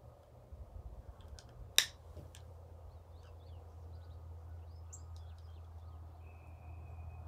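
A few small clicks, one much sharper than the rest about two seconds in, as brass cases and bullets are handled and fitted into a Lee hand press. Birds chirp faintly in the background, and a steady high tone starts near the end.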